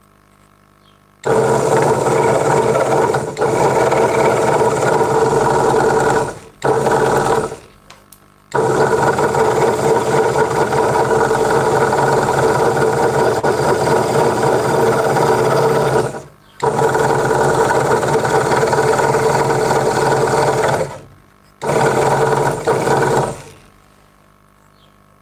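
Craftsman 22-inch scroll saw running, its blade cutting a small piece of wood: a steady, even buzz that starts about a second in, breaks off several times, and stops near the end.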